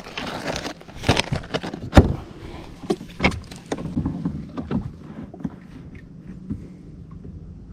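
Irregular clicks and knocks of fishing tackle being handled, the sharpest about two seconds in, then fainter scattered ticks.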